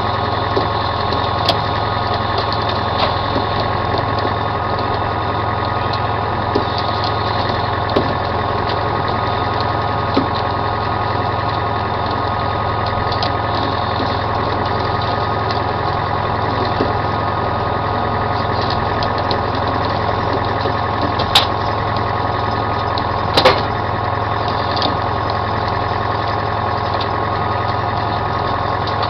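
A commercial salmon troller's engine running steadily, a constant drone. Two sharp knocks about two seconds apart come late on.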